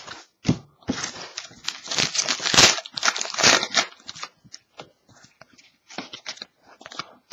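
Trading-card pack wrapper torn open and crinkled, a run of crackling over about three seconds. After that only faint, scattered taps as the cards are handled.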